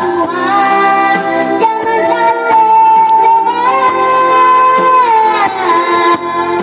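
A young girl singing a pop song over band accompaniment, holding one long note through the middle of the phrase before her voice slides down.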